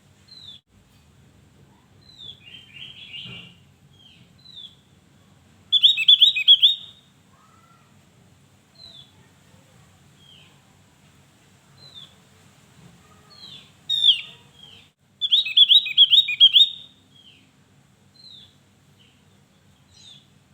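Javan grey-throated white-eye (opior Jawa) singing: scattered short, high down-slurred chirps, with loud rapid runs of notes about six seconds in and again from about fourteen to seventeen seconds in.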